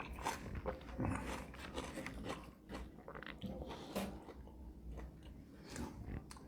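A person biting and chewing food close to the microphone: a string of soft, irregular crunches and mouth clicks.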